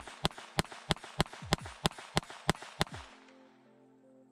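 Taurus TX22 .22 LR pistol firing in steady rapid fire, about three shots a second, roughly ten sharp reports that stop just under three seconds in. Every round of the Federal bulk-pack ammo feeds and fires without a stoppage.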